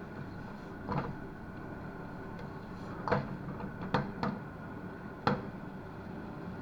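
About five scattered knocks and clicks over a steady low hum, the sound of kitchen work.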